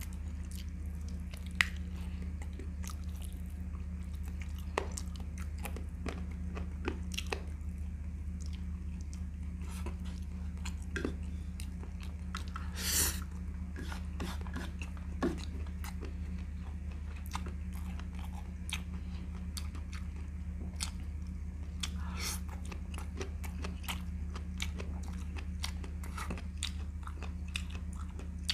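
A person chewing and biting close to the microphone while eating a chicken leg by hand, with many short mouth clicks and one louder, longer sound about halfway through. A steady low hum runs underneath.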